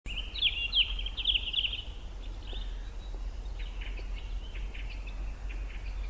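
Songbird singing: quick chirping and trilling phrases, loudest in the first two seconds, then scattered fainter notes, over a steady low hum.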